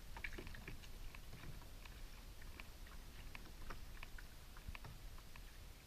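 Faint, irregular clicking and ticking, several small clicks a second, over a low rumble.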